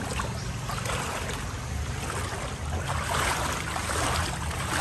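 Floodwater sloshing and splashing as someone wades through it, in uneven surges that grow louder towards the end.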